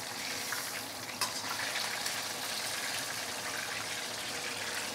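Hot oil sizzling and bubbling steadily around a whole snapper deep frying in a steel wok, with a faint tap about a second in.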